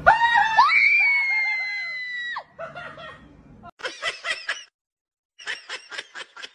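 A loud, high-pitched scream held for about two and a half seconds, its pitch sliding up and then slowly sinking. Then a tabby kitten gives rapid runs of short, squeaky meows, about six a second, in two bursts.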